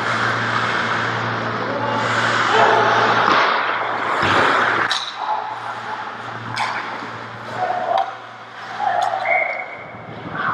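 Ice hockey play in a rink: skate blades scraping the ice, several sharp knocks of sticks and puck, and players shouting, over a steady low hum of the arena.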